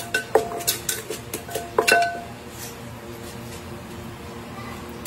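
Wooden pestle pounding papaya salad in a clay mortar: a quick run of sharp knocks, each with a short ring. The pounding stops about two seconds in.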